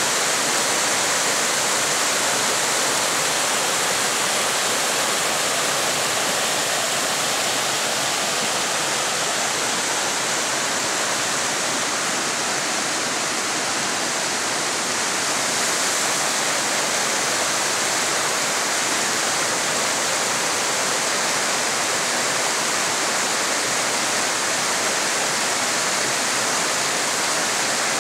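Mountain creek rushing, a loud, steady hiss of fast water that never lets up.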